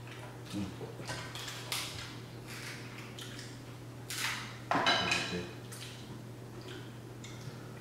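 Shrimp and king crab shells being peeled and picked apart by hand: scattered small crackles and clicks, with a louder clattering rustle about five seconds in, over a steady low hum.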